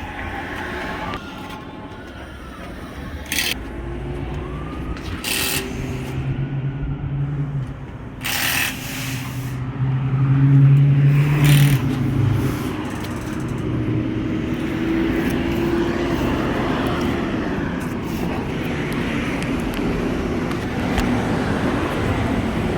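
Car engine and traffic noise with a humming engine tone and a few sharp knocks, the loudest stretch about ten to twelve seconds in.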